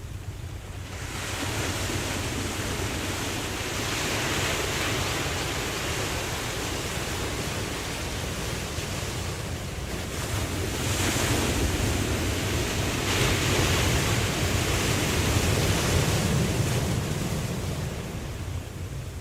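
Ocean waves washing in, swelling and easing in several surges over a steady low rumble.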